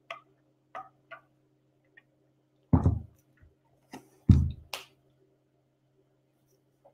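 Scattered light clicks and two louder dull knocks, the first a little under three seconds in and the second about a second and a half later, over a faint steady hum.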